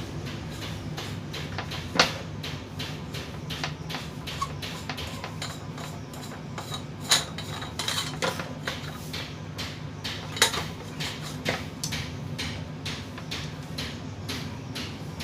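Small metal parts and tools clinking and tapping as an electric fan is dismantled to reach its stiff motor shaft, with sharper clanks about two, seven and ten and a half seconds in.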